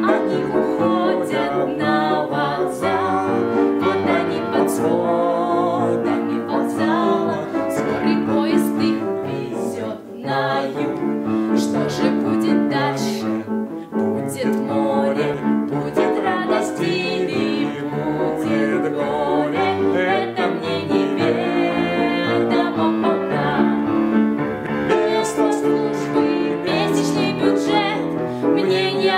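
A young woman and an older man singing a song together, with piano accompaniment.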